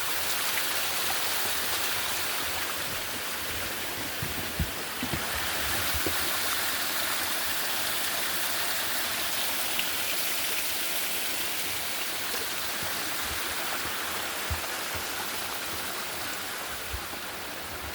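Small waterfall at a wishing well: water pouring and splashing in a steady, even rush. A few soft low bumps come through here and there.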